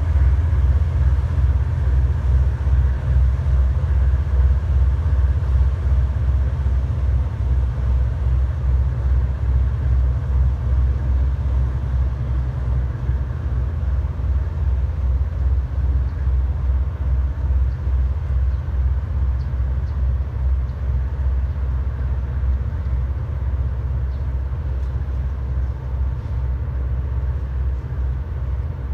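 Engines of a small high-speed passenger boat running as it pulls away from the harbour: a steady, pulsing low rumble that slowly grows fainter.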